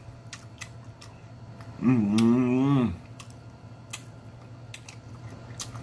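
Close-up eating sounds of a person chewing noodles, with scattered wet mouth clicks and lip smacks. About two seconds in there is a wavering "mmm" moan of enjoyment lasting about a second.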